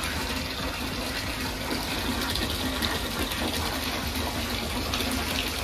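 Bathtub tap running, water pouring steadily into a filling tub.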